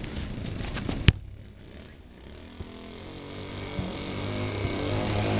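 A football kicked once on grass, a sharp thud about a second in. Afterwards a low engine-like rumble grows steadily louder.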